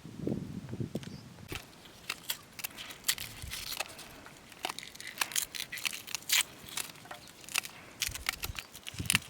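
Irregular sharp crackles and crunches, dense and uneven, starting about a second and a half in.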